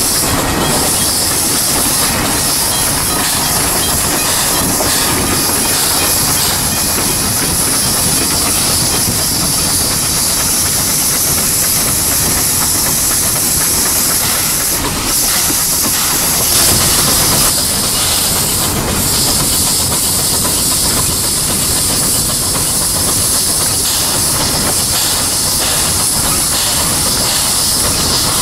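Steam locomotive D 16 'Kiwi' moving slowly past, with a loud, steady hiss of steam blowing out around its cylinders.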